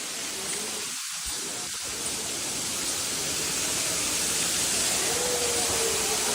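Steady rushing hiss of falling water, with a faint thin high tone in the second half.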